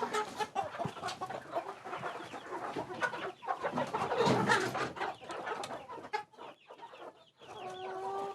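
Agitated hens clucking and squawking while being caught, with scuffling and rustling among them; one hen gives a drawn-out call near the end.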